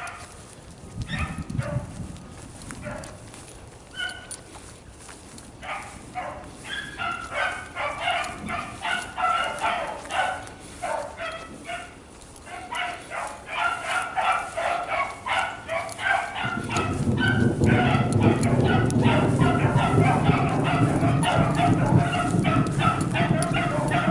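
A pack of beagles baying as they run a rabbit, quick overlapping cries that go from a few scattered ones to a steady chorus. About two-thirds of the way through, a low steady rumble comes in under the dogs.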